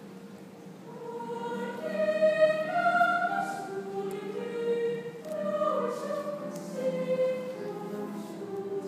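A school choir singing in sustained, slowly moving phrases of held notes, swelling louder about a second in.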